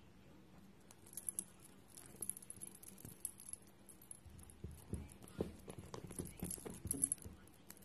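British shorthair kittens playing with a wand toy on a wooden coffee table: many small clicks and scratches of claws on the wood, joined by a run of soft thumps and clatter from about four seconds in as they pounce.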